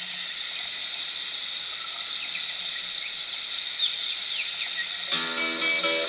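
Insect chorus: a steady high-pitched drone with short, quick falling chirps over it. About five seconds in, plucked-guitar music comes in over it.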